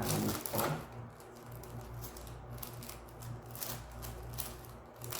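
Scattered light clicks and rustling of packaging and small plastic parts being handled.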